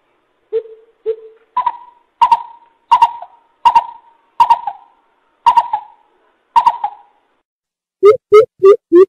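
Coucal (bubut) calling: a series of hollow hoots, two low ones first, then a string of higher hoots spaced slower and slower. Near the end a fast run of low hoots begins, about three a second.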